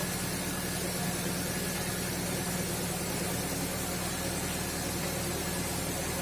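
A motor running steadily with a constant hum over a hiss, without change in speed.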